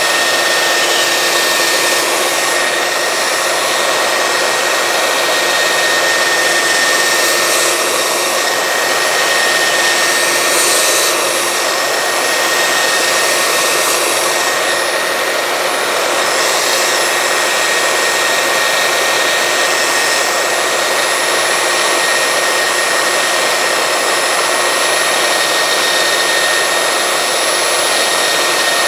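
Makita 9403 4×24-inch belt sander running steadily on its lock-on button with a high whine, while a softwood board is pressed against the moving belt and ground down.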